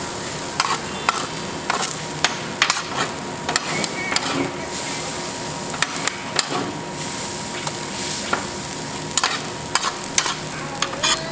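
Food sizzling on a large iron griddle plate, with frequent sharp clicks and scrapes of a metal spatula on the plate as the food is stirred and turned.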